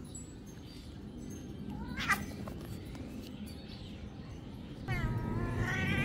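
Cat meowing: a short rising meow about two seconds in, then a long, wavering, drawn-out meow starting near the end.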